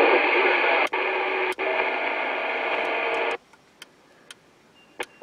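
CB radio speaker putting out a hissy, garbled received signal with steady tones running through it, broken by two brief dropouts as the channel is changed; it cuts off suddenly about three and a half seconds in, leaving a few faint ticks. The operator takes the signal for a bleeder: an over-driven station splattering onto adjacent channels.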